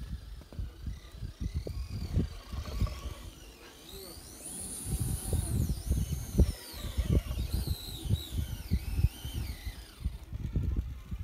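Electric motors of radio-controlled rock crawlers whining, the pitch rising and falling with the throttle through the middle stretch, over heavy wind buffeting the microphone.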